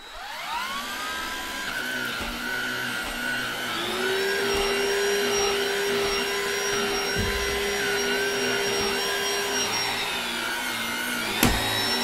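BLACK+DECKER cordless stick vacuum switched on, its motor spinning up with a rising whine, then running steadily while vacuuming carpet. Its pitch steps up a few seconds in and dips briefly near the end, with a knock just before the end.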